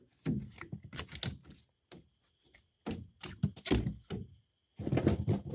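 A freshly caught fish flapping and slapping against the boat's hard deck and side, in three bursts of quick knocks.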